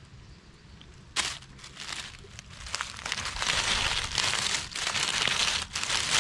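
Dry fallen leaves crunching and crackling as a toy monster truck is pushed through them by hand. A single crackle comes about a second in, and the crunching grows louder and denser from about three seconds in.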